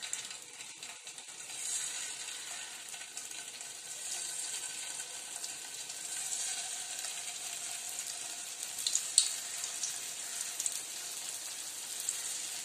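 Gulab jamun dough balls of maida and milk powder frying in hot oil in a metal kadai: a steady sizzling hiss that grows louder as more balls go in, about two and four seconds in. A few sharp ticks come about nine seconds in.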